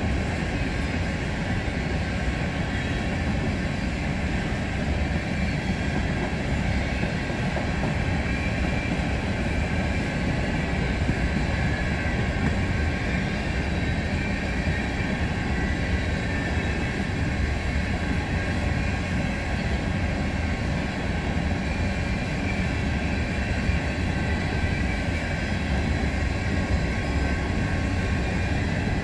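A train of empty coal hoppers rolling past at a steady speed: a continuous low rumble of steel wheels on rail, with a faint high ringing over it.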